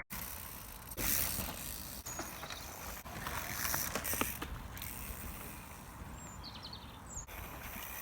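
Mountain bike rolling over a dirt trail, its freewheel hub ticking, with scattered clicks and rattles from the bike. A few short bird chirps sound in the background.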